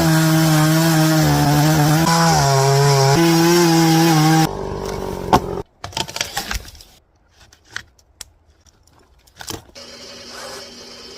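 Chainsaw running at high revs, its pitch dipping and recovering as if under load while cutting wood, then stopping abruptly about four and a half seconds in. A few sharp knocks follow, then a much quieter stretch.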